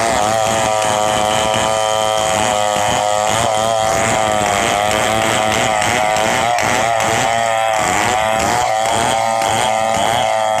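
Stihl MS 070 two-stroke chainsaw running flat out, cutting into a coconut trunk, its high steady note wavering slightly in pitch.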